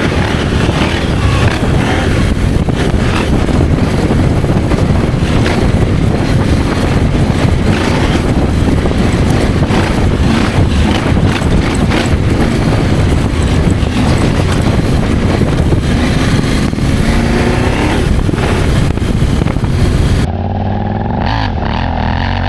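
Adventure motorcycle ridden off-road, its engine running under a loud, dense rush of noise, with the engine rising in pitch a few times near the end. About twenty seconds in, the sound changes abruptly to a duller, steadier engine note.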